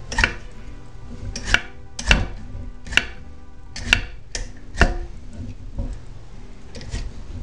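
Vegetable peeler scraping strips of skin off a butternut squash in a series of short, sharp strokes, roughly one a second. The strokes are louder over the first five seconds and fainter toward the end.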